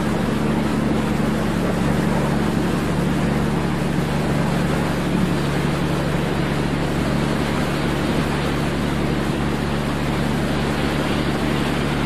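Steady low hum of a ship's engine, with a constant rush of wind and sea noise on the open deck.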